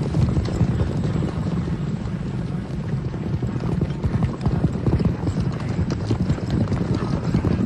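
Hoofbeats of many horses galloping together, a dense and continuous run of thuds.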